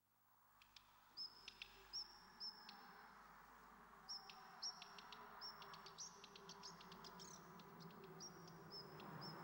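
Birds chirping: many short, high chirps, some in quick runs, over a faint outdoor ambience that fades in from silence at the start.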